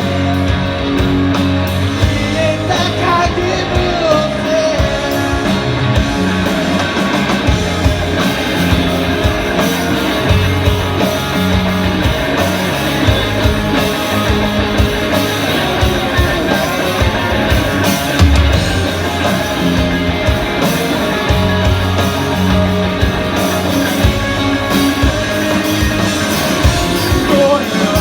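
Rock band playing an instrumental passage of the song, with guitar over a steady beat.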